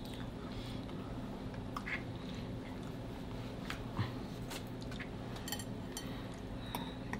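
A person chewing a mouthful of creamy chicken and shrimp alfredo pasta, with a few soft, wet mouth clicks spread through the chewing over a steady low hum.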